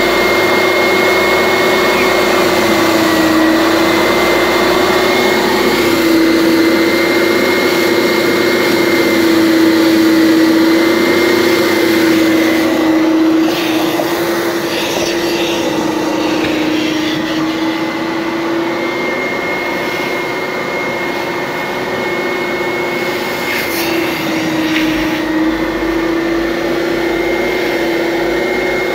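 Wet-extraction vacuum running steadily, with a motor whine that dips slightly in pitch now and then as its nozzle sucks shampoo foam out of car floor carpet.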